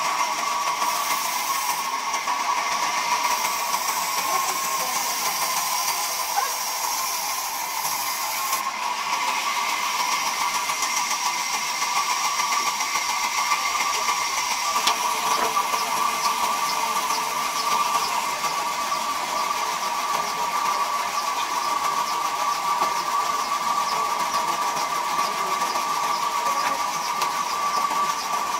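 Large vertical band saw running steadily as it rips a log lengthwise into planks: a constant whine with a hiss of the blade through the wood.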